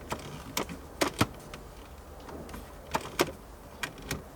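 About eight sharp, irregular clicks and light knocks from hands working a car radio's wiring harness and plastic connectors, over a faint steady low hum.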